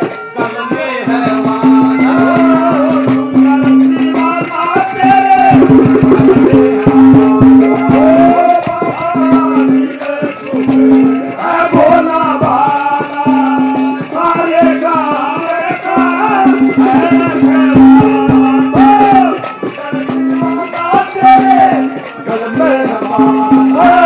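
Live Haryanvi ragni: a man singing loudly into a microphone in a long, ornamented folk melody, over folk accompaniment with a repeated held low note and steady shaken percussion.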